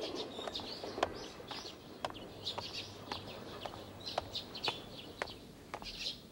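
Footsteps on pavement, about two steps a second, over small birds chirping in the background.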